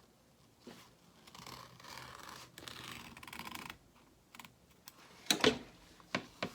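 Scissors trimming embroidery stabilizer from the back of the hoop: a stretch of rustling, scratchy cutting, then a few sharp clicks, the loudest about five seconds in.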